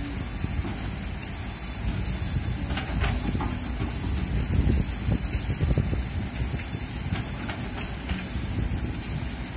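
Kobelco crawler excavator's diesel engine running while its bucket drags and levels loose soil, a low uneven rumble that swells around the middle, with strong wind buffeting the microphone.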